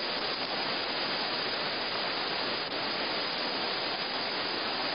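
Whitewater rapids rushing steadily, an even wash of water noise.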